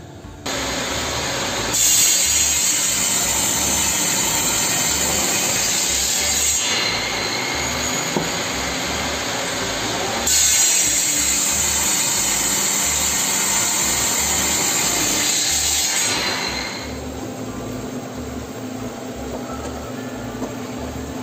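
Table saw cutting wood twice, each cut lasting about five seconds. Between the cuts and after them the blade runs free with a steady hum.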